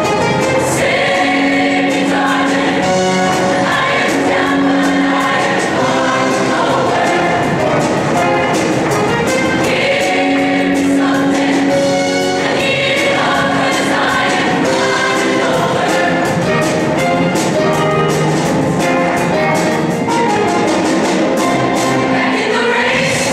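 Show choir singing in parts over instrumental accompaniment with a steady beat.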